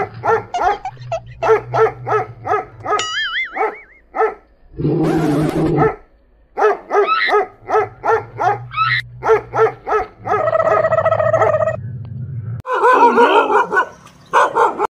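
A dog barking and yelping in rapid runs, about four barks a second, with short breaks between the runs.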